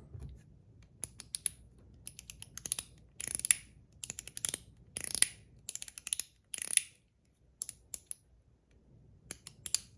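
Zirconium One Pal fidget slider being worked back and forth: its spring-loaded ball detents snap with sharp metallic clicks in quick clusters, several followed by a short ring.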